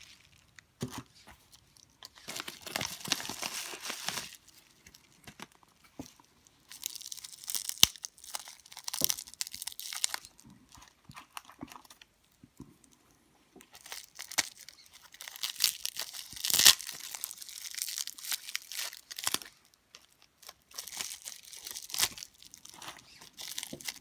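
Packaging being torn open and crinkled by hand, in several separate bouts of tearing and rustling with sharp crackles and short quiet pauses between.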